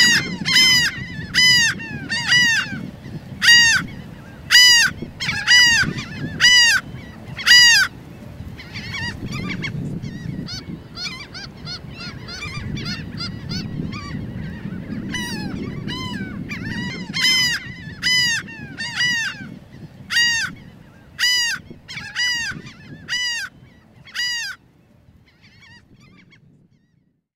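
Laughing gulls calling in a nesting colony: repeated downward-arching calls about one a second, several birds overlapping, over a low rumble. The calls thin out and fade away near the end.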